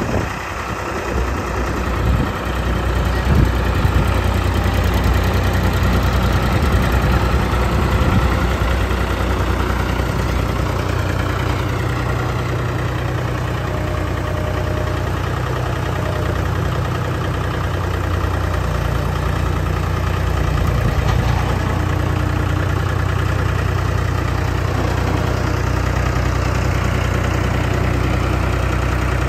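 Engine of a self-propelled spray machine idling steadily, a deep even hum. A few short knocks sound in the first few seconds.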